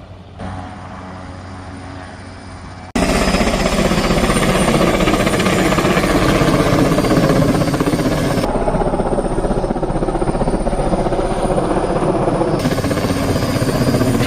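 Helicopter rotor and engine running loud and close, with a rapid, even blade chop. It starts abruptly about three seconds in; before that a fainter engine drone is heard.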